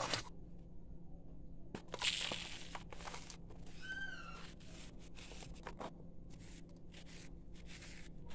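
A dry sand-cement cast crushed and crumbled by hand over a bowl of sifted sand: a loud crunch about two seconds in as it breaks, then a run of short gritty crunches and sprinkles of falling grit. A brief high squeak sounds about four seconds in.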